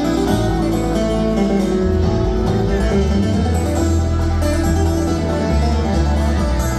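A live bluegrass band playing, with acoustic guitar, banjo and upright bass.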